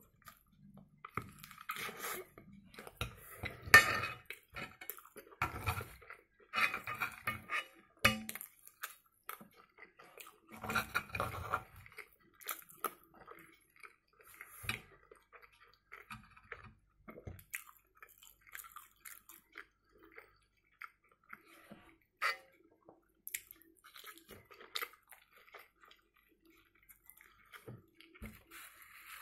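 Close-up chewing and mouth sounds of a man eating fried eggs, sausage and bread, with a fork clinking and scraping against a frying pan. The sounds come in irregular bursts, busier in the first twelve seconds, with one sharp knock about four seconds in as the loudest moment.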